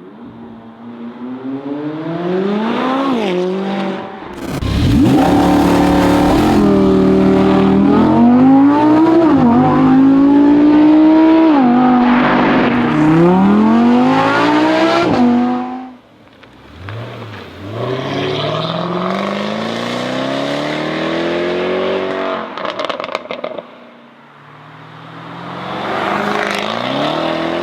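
Sports car engine and exhaust under hard acceleration through the gears: the engine note climbs and drops sharply at each upshift. It eases off about 16 seconds in, then pulls up again twice more.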